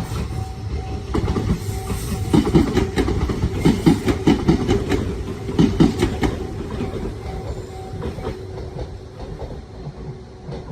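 Kumamoto Electric Railway 6000-series train passing over a level crossing, its wheels clacking over rail joints in quick clusters for several seconds. The crossing bell dings at a steady rate and falls silent near the end.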